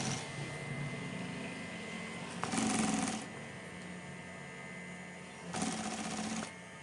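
Industrial sewing machine stitching a binding strip onto quilted vinyl in two short runs, about two and a half seconds in and near the end, with a steady hum in between.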